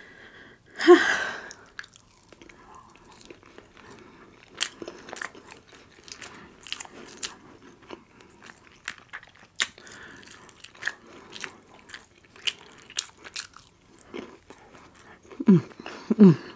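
Close-miked eating: biting and chewing with crisp clicking crunches spread through, a loud burst about a second in, and a few short falling vocal sounds near the end.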